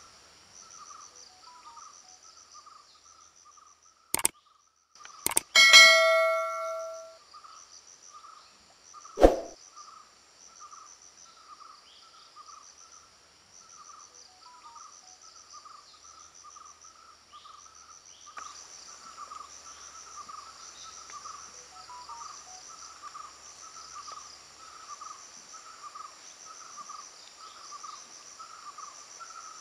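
Forest insects chirping in a steady, pulsing chorus. About five seconds in, two sharp clicks are followed by a loud metallic clang that rings and fades over a second or so, and a single knock sounds about four seconds later; after about eighteen seconds the insect chorus grows fuller.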